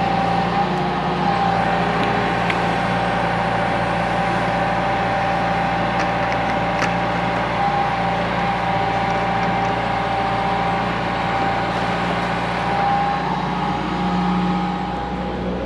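Excavator's diesel engine running steadily at working speed, with a steady high whine over the engine hum.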